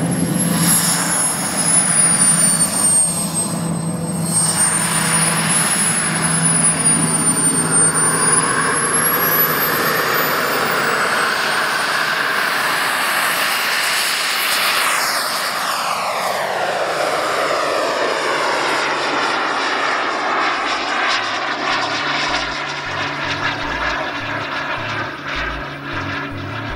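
Model jet's 210-size turbine engine running with a high whine as the RC delta-wing jet taxis and takes off; the sound sweeps down in pitch as the jet passes about halfway through, then gets fainter as it climbs away.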